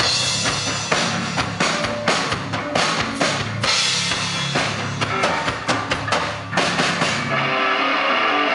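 Live rock band playing an instrumental intro: drum kit hits with electric bass and distorted electric guitar. About seven seconds in the playing shifts to a steady wash of cymbals.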